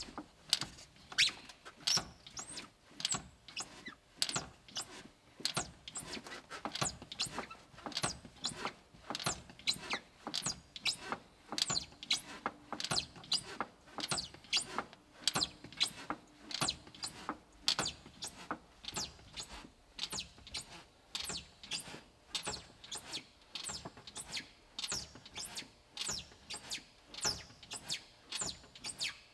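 The foot brake of an AEC Routemaster's hydraulic braking system is pumped over and over, each application giving a short, sharp squeaky hiss, a little over one a second. The pedal is drawing on the stored pressure of the freshly charged accumulators, as a test of how many applications they give before the low-pressure warning flag drops.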